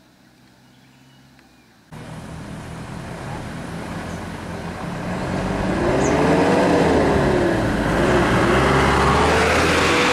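Road vehicle engines running close by. The sound comes in suddenly about two seconds in and grows louder, with an engine note that rises and falls as a vehicle pulls up near the camera.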